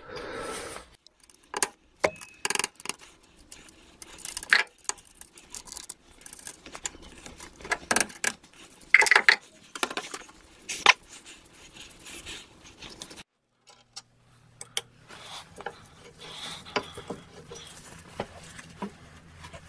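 Irregular metallic clinks and knocks of steel lathe parts being handled and tapped while the headstock of an old Meteor wood lathe is dismantled.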